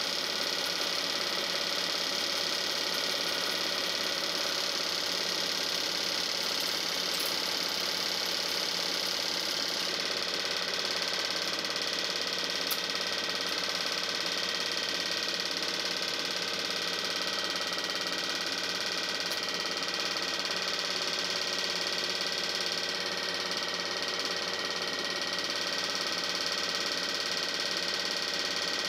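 Steady mechanical whirr of a running 8 mm film projector, even in pitch and level throughout.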